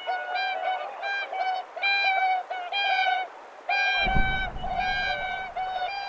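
Swans calling: a steady run of short, nasal honks, several a second and overlapping. About four seconds in, a low rushing noise joins the calls.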